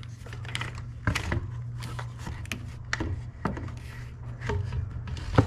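Scattered light clicks and knocks as a replacement power steering pump and its plastic reservoir are handled and fitted in a truck's engine bay, over a steady low hum. A louder knock comes near the end.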